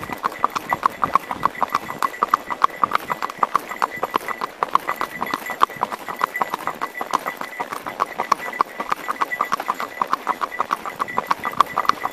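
Horse's hooves clip-clopping on an asphalt road, a quick, even rhythm of sharp hoofbeats.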